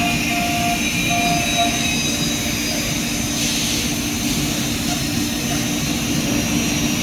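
Woodworking CNC router and its dust extraction running, a steady mechanical drone with a low hum. A brief hiss comes about three and a half seconds in.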